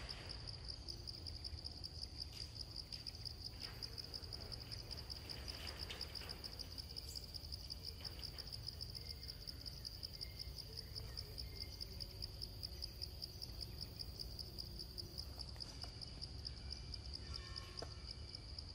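Insects in the forest chirring continuously: a steady, high, finely pulsing trill, over a faint low rumble.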